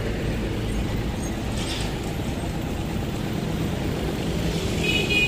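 Steady low background rumble of motors or traffic, with no distinct event; a brief faint high-pitched tone sounds near the end.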